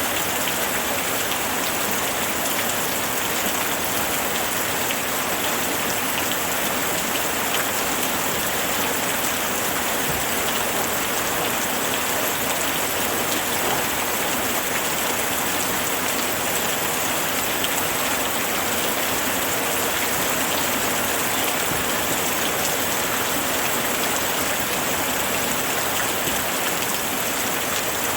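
Steady rainfall, a dense even hiss of rain with many small drop ticks on a surface, unchanging throughout.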